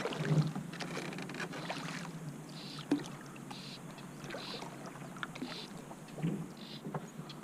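River water lapping and splashing around a drift boat, with scattered small knocks and clicks from the boat.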